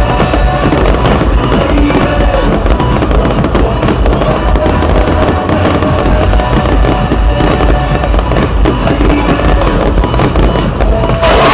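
Fireworks display: a dense, continuous barrage of bursting shells and crackling stars, with music playing along.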